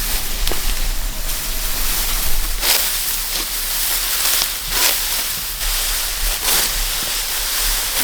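Dry rice stalks rustling and swishing in irregular strokes as they are cut and handled, over a steady hiss and wind rumble on the microphone.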